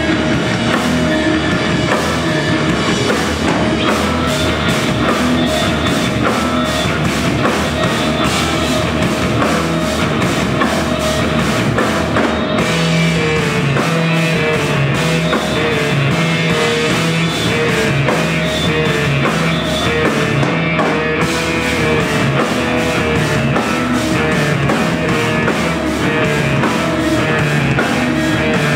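A live instrumental rock band plays loud, dense music: a drum kit, an electric bass guitar and a clarinet. About twelve seconds in, the music moves into a new section with a repeating riff.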